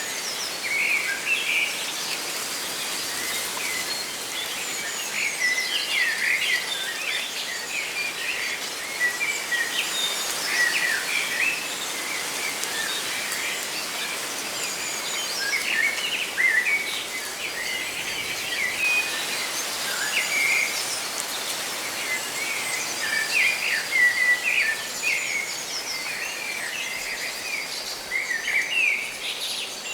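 Many birds chirping and trilling over a steady rustle of leaves.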